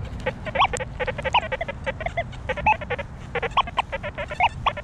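XP Deus 2 metal detector sounding a rapid chatter of short tones that jump in pitch as the coil sweeps ground thick with iron: the 'machine gun iron' of a dense iron bed.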